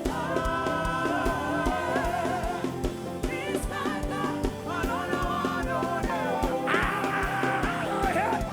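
Live gospel worship band playing, with a steady kick drum about two beats a second under long, sliding sung or played notes.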